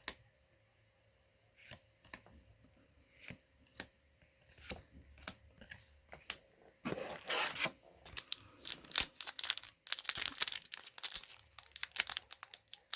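A few scattered light clicks and taps, then from about seven seconds in a Magic: The Gathering booster pack's foil wrapper being torn open and crinkled.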